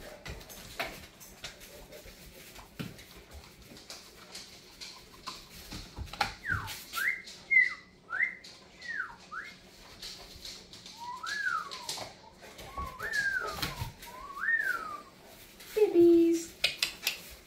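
Cane Corso puppy whining: two runs of quick, high whines that rise and fall, amid scattered clicks and rustles. A short, lower-pitched sound near the end is the loudest moment.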